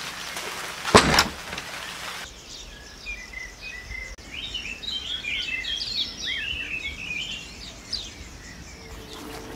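A steady hiss of heavy rain with one loud knock about a second in, then, after a cut, small birds singing: many short chirps and trills overlapping for several seconds.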